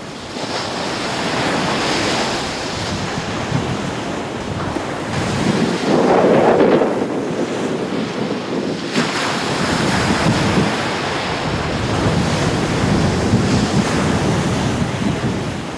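Surf breaking on a sandy beach, the wash swelling and ebbing every few seconds, loudest about six seconds in, with wind buffeting the microphone.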